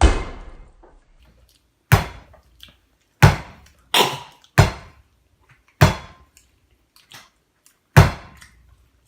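Seven loud, sharp bangs at uneven intervals, each dying away quickly, two of them close together about four seconds in.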